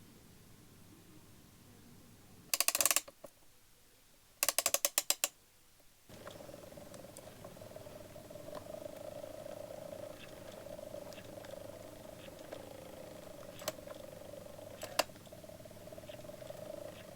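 Antique automaton's clockwork: two runs of ratcheting clicks as the spring is wound, then the movement starts, a steady whirr with a few light ticks.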